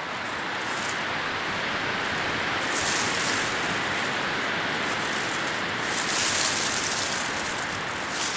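Leaves rustling in the wind, a steady hiss that swells gently twice, about three seconds in and again near six to seven seconds.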